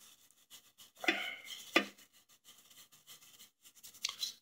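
Small wire brush scrubbing carbon off the valve heads of an old 5 hp four-stroke engine: quick scratchy strokes, with a few sharper clicks of the brush on the metal, the loudest about two seconds in.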